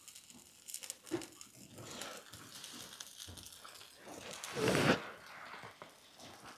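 Scratchy rustling and scraping from a farrier working on a horse's held-up hoof with a hand tool, with scattered small clicks and one louder, half-second scrape about four and a half seconds in.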